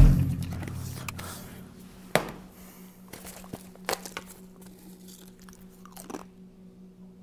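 A deep booming hit at the very start that dies away over about two seconds, then a few sharp clicks and crunches about every two seconds as bottles and snack cans are handled.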